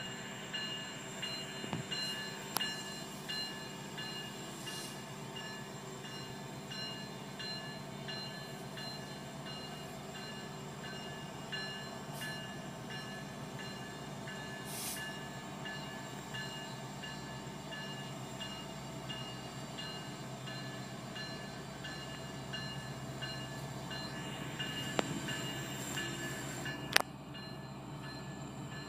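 Union Pacific SD70 and SD90 diesel locomotives running as they slowly pull a loaded coal train out of the yard, a steady distant engine drone with a regular high ringing pulse over it. A sharp knock sounds near the end.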